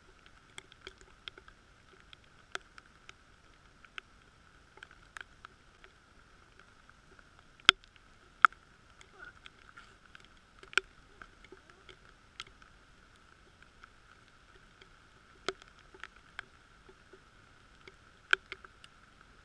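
Rain: irregular sharp ticks of raindrops striking the camera's waterproof housing, mostly faint with a few much louder hits, over a faint steady hiss.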